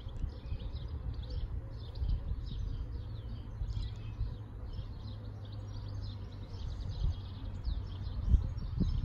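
Small birds chirping and singing without a break, over a low rumble.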